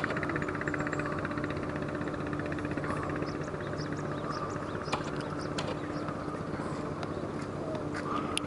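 Steady engine hum, like a motor running at idle, with a few faint clicks and short high chirps over it.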